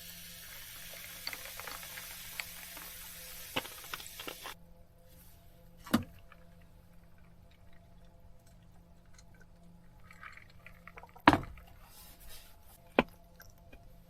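Water running into a small sink, stopping abruptly about four and a half seconds in, followed by a few sharp knocks and clicks, the loudest about eleven seconds in.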